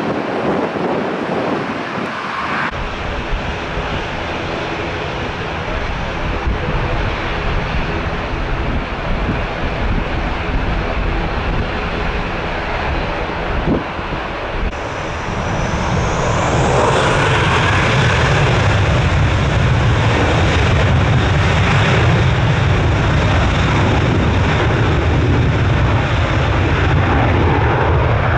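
Jet engines of a Ryanair Boeing 737-800 (CFM56 turbofans) running on the runway, then spooling up to takeoff thrust about halfway through, with a whine rising in pitch and a louder, deep rumble that holds through the takeoff roll.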